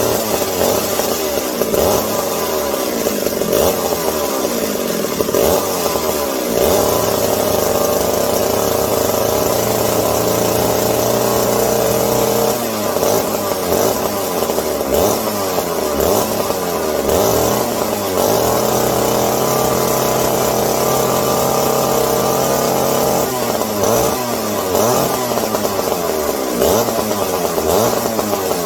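Vintage McCulloch 740 two-stroke chainsaw engine running, holding a steady speed in stretches and revving up and down several times, with quick repeated revs in the last few seconds. Its uneven running is put down by the owner to carburettor problems.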